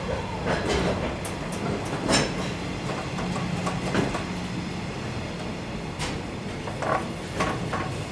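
Freight train of container flatcars rolling past close by: a steady rumble of the wagons, with irregular sharp clacks as their wheels cross rail joints.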